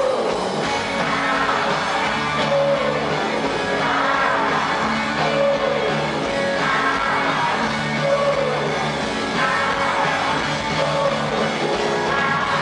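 Live rock band playing loud through a PA, with electric guitars, drums and a male voice singing.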